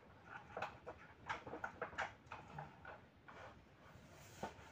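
Light, irregular clicks and taps of hard plastic as a wheel is fitted onto the axle of a ride-on toy tractor's trolley and handled at the hub. Most of the clicks bunch together in the first two seconds or so, and there is one sharper tap near the end.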